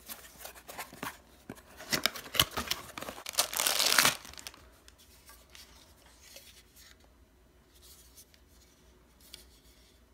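Clear plastic wrapping around a smart plug crinkling and tearing as it is pulled off, in quick crackly bursts for about four seconds, then only faint handling.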